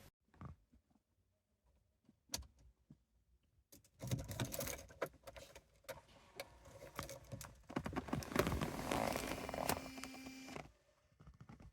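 Rapid, irregular clicking and rattling of small hard parts being handled, after a few single clicks, with a low steady hum joining for about a second before it all stops.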